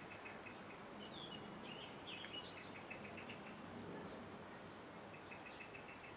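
Birds calling over a steady background hiss: quick runs of short repeated chirps near the start and again a few seconds in, with a few higher sliding notes between them.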